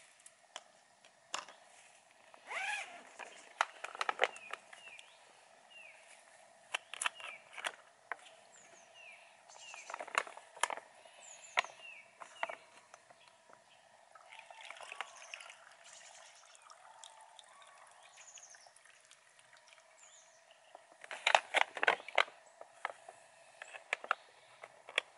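Thin plastic crinkling and clicking as a collapsible water canister and a plastic bag are handled. The densest, loudest crackle comes near the end. Short chirps from small birds come and go.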